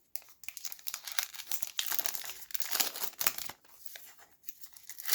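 Plastic trading-card pack wrapper crinkling and tearing as it is handled and ripped open, in irregular crackly bursts with a short lull in the middle.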